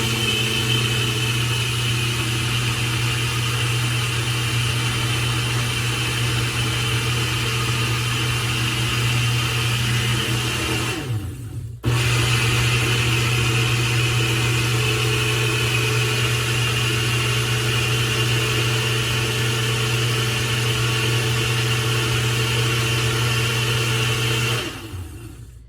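Ninja blender motor running at a steady high speed, blending ice, frozen fruit and spinach into a thick smoothie. It winds down about eleven seconds in, starts again within a second, and winds down near the end.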